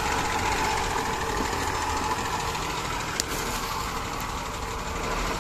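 Motor vehicle engine idling steadily, with a single short click about three seconds in.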